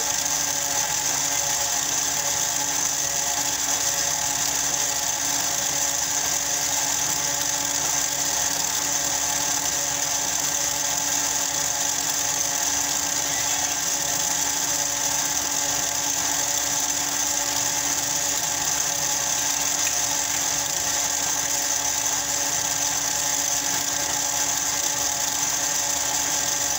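Electric stand mixer running steadily at one speed, mixing carrot cake batter in its stainless steel bowl: an unchanging motor whine with a high hiss.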